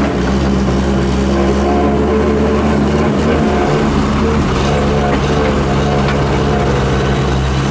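Heavy diesel engines of a loaded three-axle dump truck and an excavator running steadily; the engine note shifts about halfway through as the truck starts to pull away.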